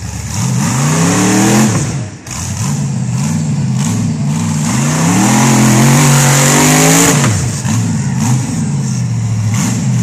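Rock bouncer buggy's engine revving hard in repeated bursts, the pitch climbing and dropping back again and again. Its tyres spin and throw dirt, and the longest, loudest rev comes about five to seven seconds in.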